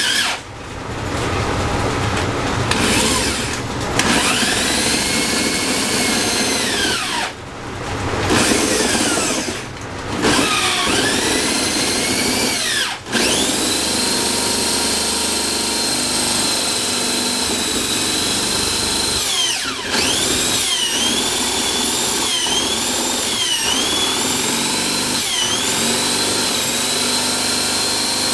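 A power tool's electric motor switched on and off in short runs, its whine rising each time it spins up, then running steadily for several seconds. In the later part its pitch dips and recovers again and again as it comes under load.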